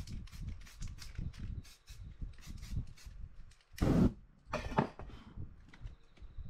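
Paper stencils being handled and lifted off a spray-painted board, a run of short rustles and taps, then about four seconds in a loud whoosh as the wet spray paint is set alight and flames flare across it, followed by a second, shorter whoosh.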